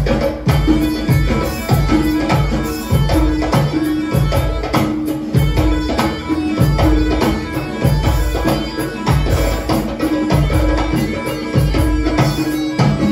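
Tunisian traditional band playing live through a PA, on violin, electronic keyboard, drum kit and hand drum, with a steady heavy beat and a held melodic note over it.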